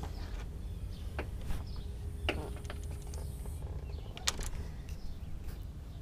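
Steady low rumble of a distant airplane, with several sharp clicks, the loudest about four seconds in, as a screen door is handled.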